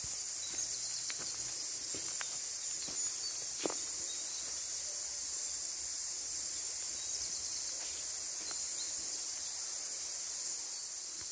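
Steady high-pitched chorus of forest insects, with scattered footsteps on a leaf-covered dirt path.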